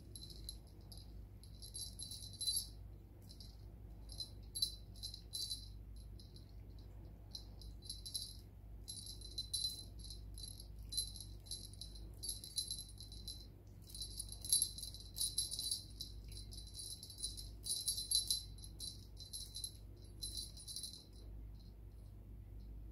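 Small bell on a ribbon cat wand toy jingling in short, irregular shakes, a dozen or more bursts, as the toy is jiggled and batted.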